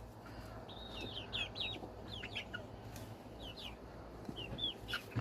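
Several chickens giving soft clucks and short, high chirps while they feed on watermelon.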